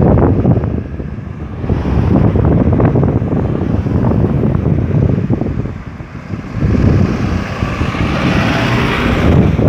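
Road traffic moving through a busy roundabout, vehicles passing in waves, with wind buffeting the microphone. Near the end a passing vehicle adds a hiss that is higher than the rumble.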